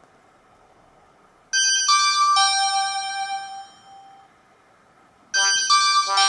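Siemens Xelibri ringtone played through a Samsung GT-E2121B phone's speaker: electronic notes. About one and a half seconds in, three notes step downward and ring on for about two seconds, and a second, busier phrase of notes starts near the end.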